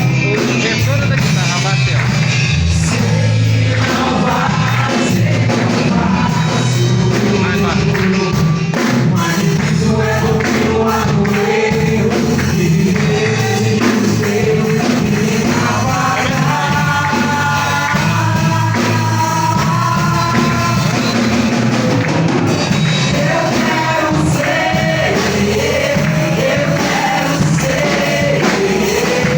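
Church praise group performing a gospel worship song: singing over band accompaniment, continuing without a break.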